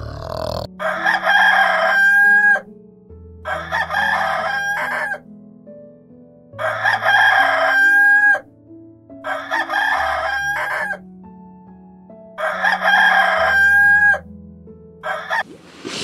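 Rooster crowing again and again, about every three seconds, most crows ending in a long held note, over soft background music.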